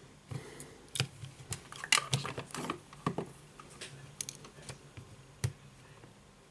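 Small clicks and taps of an iPhone 5s being handled and a Lightning cable plugged into its port: a run of quick clicks in the first half, then one sharp click a second before the end.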